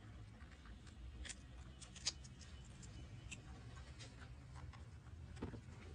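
Faint, scattered small clicks and crunches of a baby monkey chewing lotus seed, the clearest about two seconds in, over a low steady hum.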